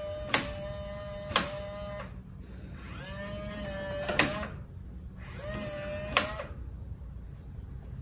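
Motorized deadbolt of a Lockly Vision smart lock whirring in three short runs, each run ending in a sharp click as the bolt stops. The lock is cycling its bolt on power-up, after the last battery went in with the button held down.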